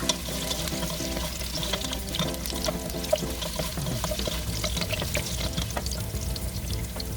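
Diced potatoes and carrots frying lightly in a little oil in a pan: a scattered crackling sizzle with the sound of stirring. Instrumental background music plays under it.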